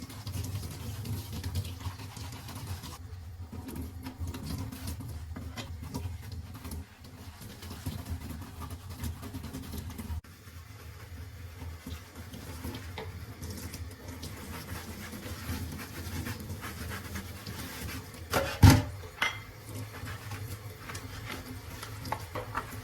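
Dishwasher parts being handled and scrubbed, with soft rubbing and light clatter over a steady low hum, and one loud clunk late on.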